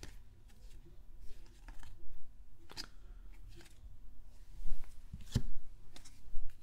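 Baseball cards being flipped through by hand: card stock sliding and flicking against the stack in a handful of short rustles and snaps, the sharpest a little past five seconds in.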